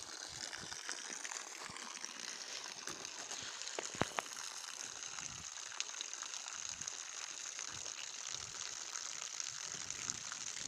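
Steady splashing hiss of a thin stream of water pouring onto muddy ground, with a couple of sharp clicks about four seconds in.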